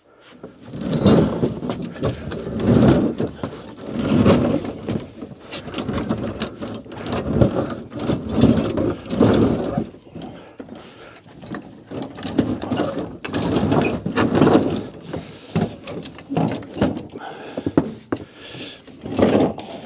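Heavy steel drag harrow rattling and clanking as its linked spikes and frame are lifted and loaded, in irregular bursts of metal knocks about every second.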